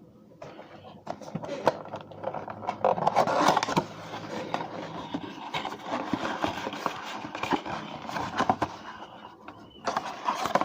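Cardboard card box and the packaging inside it being handled and rummaged through: irregular rustling, scraping and small clicks.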